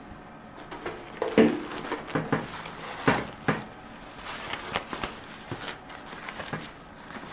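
Disposable diaper rustling and crinkling as it is handled and unfolded, with a few sharper clicks and knocks.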